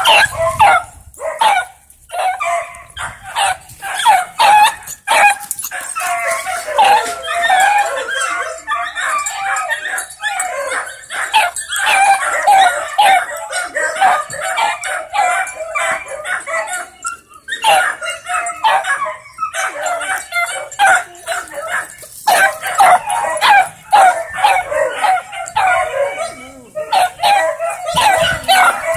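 Hound dogs, a young beagle-type puppy among them, yipping and barking rapidly and almost without a break, with a few short pauses.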